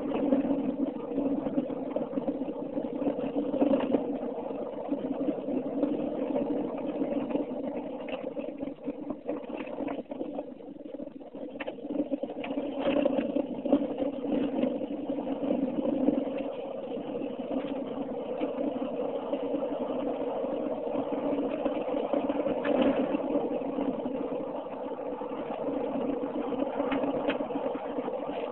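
Car driving at road speed, heard from inside the cabin: a steady hum of engine and road noise, with a few short knocks and rattles.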